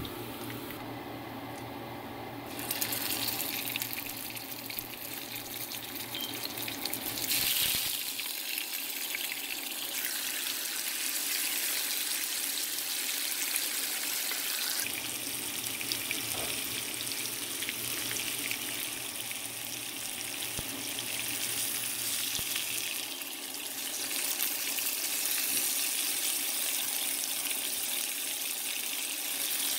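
Hot oil sizzling steadily in a frying pan, first around cumin seeds and then around spice-stuffed small eggplants as they fry; the hiss shifts in strength a few times.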